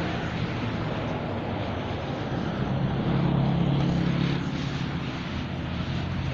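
Steady rain noise with a vehicle engine's low hum under it; the hum gets louder about three seconds in and eases after about four and a half.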